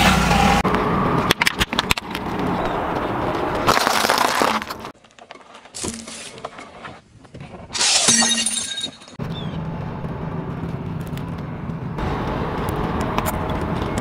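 A car tyre rolling slowly over objects and crushing them, with cracking and crunching and the car's engine running low underneath. About eight seconds in, a loud crunching burst comes as the tyre flattens a pile of candy-coated M&M's in their wrappers.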